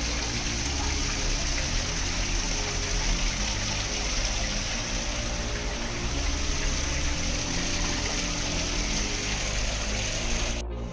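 Steady rush of running water, with a faint low hum underneath.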